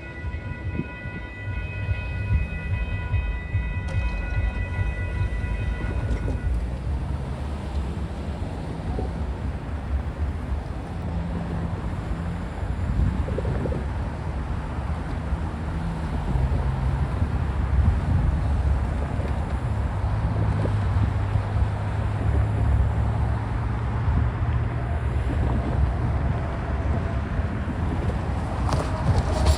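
Union Pacific intermodal stack train rolling past: a steady low rumble of wheels on rail, with low engine tones shifting through it. A high steady ringing tone stops abruptly about six seconds in.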